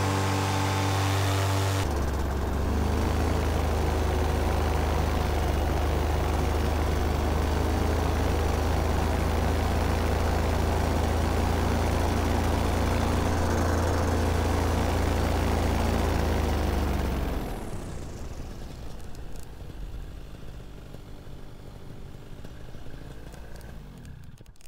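Paramotor engine and propeller running under power. About two seconds in the pitch drops as the throttle is eased back, then it runs steady. About seventeen seconds in the engine sound falls away sharply as power is cut for the landing, leaving a much quieter low noise.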